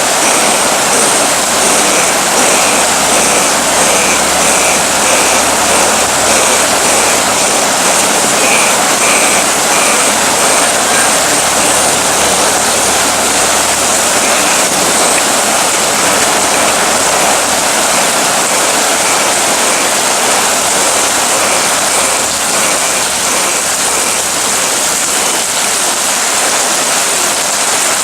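Heavy rain falling as a loud, steady hiss, with faint short high chirps repeating through most of it.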